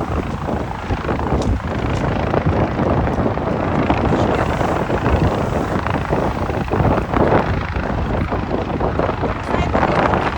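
Fire-service helicopter in flight, its rotor and engine making a loud, steady noise, with wind on the microphone.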